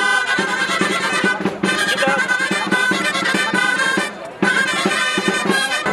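Gralles, Catalan shawms, playing a reedy, piercing traditional melody, the music that accompanies the raising of a human tower, over low beats about four times a second. The playing breaks off briefly a little after four seconds in, then carries on.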